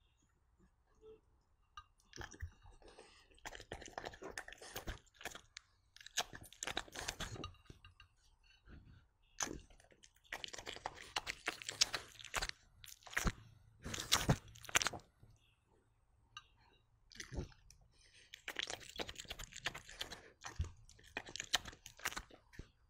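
A dog chewing and crunching sweet potato, in bouts of several seconds with short quiet pauses between.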